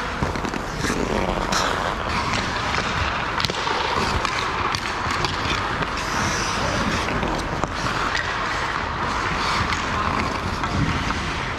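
Ice hockey practice on the rink: skate blades scraping and carving the ice, with scattered sharp clacks of sticks and pucks.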